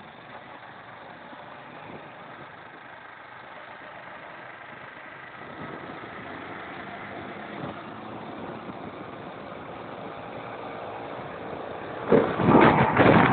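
Motorcycle engine running steadily while the bike is ridden, growing a little louder about halfway through. About twelve seconds in, a sudden loud, rough noise covers it.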